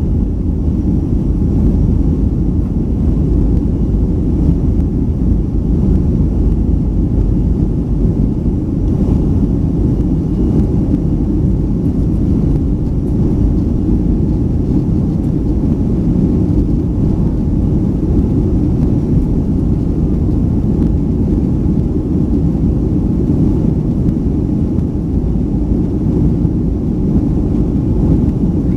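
Steady low roar inside the cabin of a Boeing 737-500 during its climb: the CFM56-3 turbofan engines and the rush of air along the fuselage, heard from a seat over the wing.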